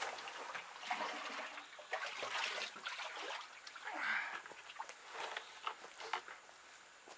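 Muddy floodwater sloshing and splashing as a plastic five-gallon bucket is dipped in and filled, bailing out a flooded clay pit, then a few knocks as the full bucket is lifted and set down on the rim.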